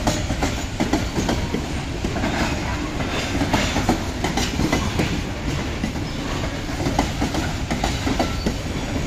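Freight train of covered hopper cars rolling past close by: a steady rumble of wheels on the rails with frequent irregular clacks and knocks.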